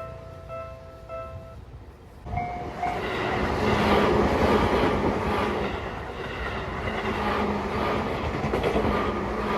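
Level crossing warning bell ringing in a quick two-a-second clang, then a short horn blast about two seconds in as an electric commuter train arrives and passes close by, its wheels clattering over the rail joints loudly for the rest of the time.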